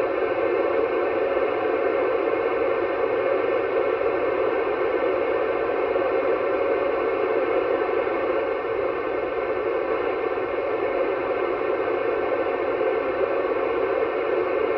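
Yaesu FT-991A transceiver's speaker giving a steady hiss of FM static, tuned to the ISS amateur repeater's 437.8 MHz downlink with no station talking through it.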